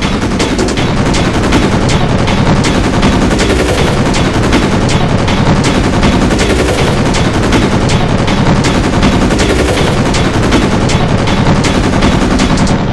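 Loud, dense barrage of rapid sharp hits like machine-gun fire, layered cartoon sound effects packed without a break, cutting off at the very end.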